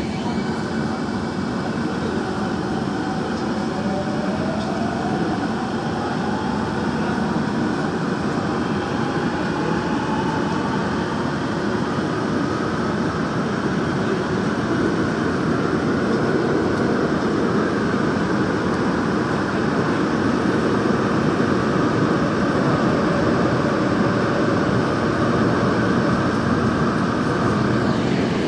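Daejeon Metro Line 1 electric train heard from inside the car as it pulls away from a station and speeds up into the tunnel: a slowly rising motor whine over the steady rumble of wheels on rail, levelling off about halfway through.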